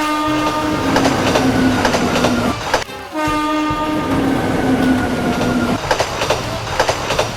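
Plarail toy train running along plastic track: a motor and gear whine that slowly sinks in pitch over a rattling hum, with clicks of the wheels over the rail joints. It comes in two stretches, broken by a short dip about three seconds in.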